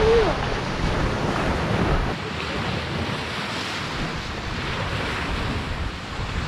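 Small waves breaking and washing over a pebble shore, with wind rumbling on the microphone, stronger for the first couple of seconds. A brief rising voice sound right at the start.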